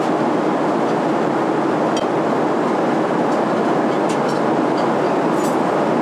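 Steady rushing hum of a Boeing 777 airliner cabin in flight, constant in level, with a few faint light clicks.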